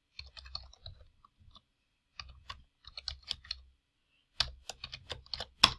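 Computer keyboard typing in short runs of keystrokes with pauses between, and one louder key press near the end.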